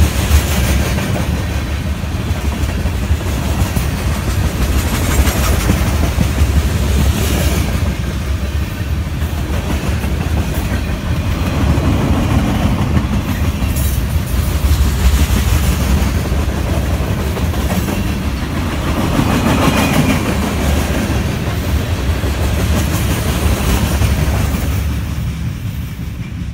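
Freight train of tank cars and a covered hopper rolling past close by: a steady rumble of steel wheels on rail with scattered clacking. It dies away near the end as the last car passes.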